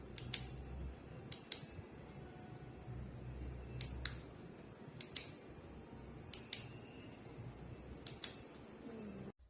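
Six sharp double clicks, each pair a fraction of a second apart and the pairs one to two and a half seconds apart, over a low steady hum.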